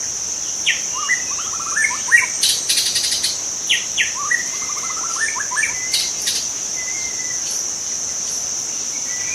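A steady, high-pitched insect trill of a cricket type, with a bird calling over it. The bird gives runs of quick rising notes twice, about a second in and again about four seconds in, with sharper single calls in between.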